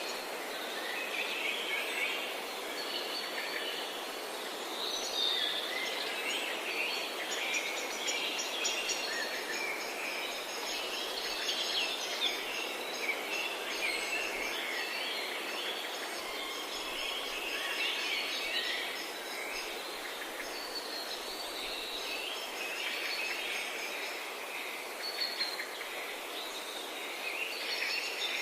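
Many forest birds chirping and singing at once, over a steady background hiss. A fast, evenly repeated high trill joins about eight seconds in, runs for about ten seconds, and comes back near the end.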